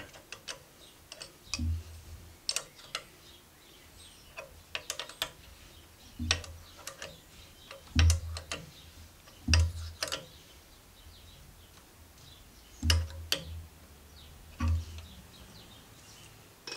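Irregular metallic clicks and knocks from a spanner working an ER32 collet nut as it is tightened on a lathe collet chuck, several of them with a dull thump.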